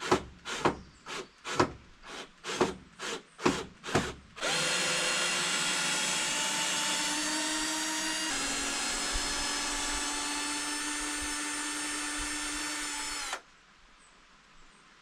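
About nine short sharp knocks, roughly two a second, then a power drill runs steadily for about nine seconds, backing a screw out of a door frame; its pitch drops slightly partway through and it stops suddenly.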